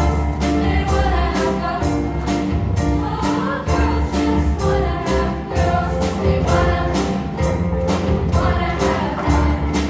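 Show choir singing in chorus over backing music with a steady beat.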